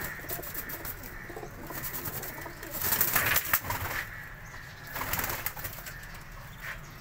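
Young domestic pigeons cooing in a loft, with two short noisy rustles about three and five seconds in.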